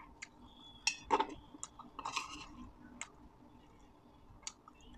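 Metal spoon clinking and scraping against a stainless steel bowl as food is scooped up: irregular sharp taps with a short scrape, loudest about a second in.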